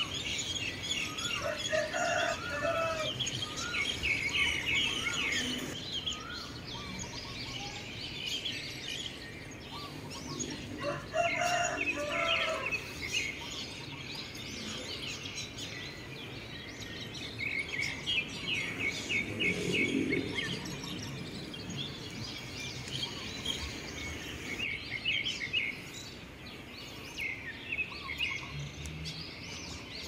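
Many small birds chirping and calling continuously, with a rooster crowing twice, about two seconds in and again about eleven seconds in.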